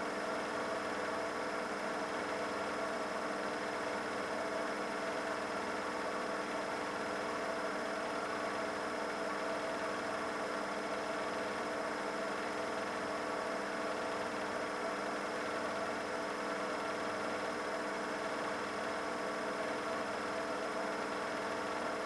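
Bosch Logixx WAS32461GB washing machine in its 1200 rpm final spin: the motor and drum run with a steady hum and whine that holds the same pitch and level throughout.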